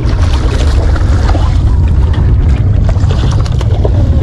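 Wind buffeting the microphone: a loud, steady low rumble with no clear rhythm or pitch.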